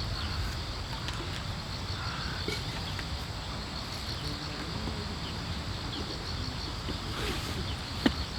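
Outdoor ambience of insects chirping steadily in a high, evenly pulsing band over a low, steady rumble, with one sharp snap near the end.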